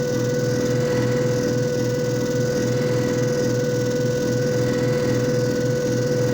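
JFJ Easy Pro disc repair machine running: a steady motor hum with an even, low pulsing a few times a second.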